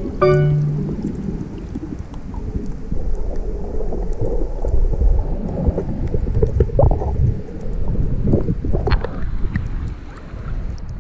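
Water noise picked up by a camera held underwater: a muffled, rumbling wash with scattered bubbly crackles. Near the end the camera comes up to the surface.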